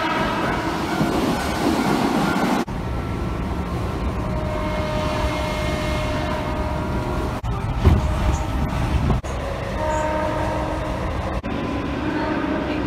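Japanese electric trains sounding their horns in a string of short clips, each a steady held note of several tones over the rumble of the running train. The first is a Keihan 8000 series train passing through an underground station, and later ones are heard from inside a driver's cab. The sound changes abruptly every few seconds.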